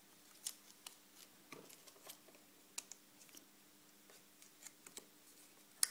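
Faint scattered clicks and light handling noises as film is threaded by hand around the rollers and sound drum of a Marin film projector, with the sharpest click near the end, over a faint steady low hum.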